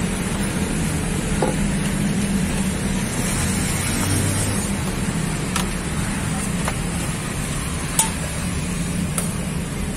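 Steady road traffic noise with a low hum, and a few light clicks, the sharpest about eight seconds in.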